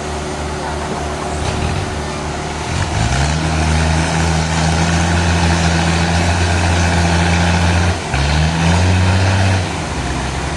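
Heavy engine of sawmill machinery running with a steady low hum; its pitch climbs about three seconds in, dips briefly about eight seconds in, then settles lower a second or so later.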